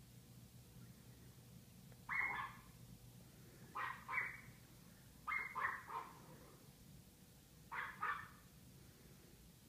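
Dog barking in short bursts: a single bark, then two, three and two barks, a second or two apart.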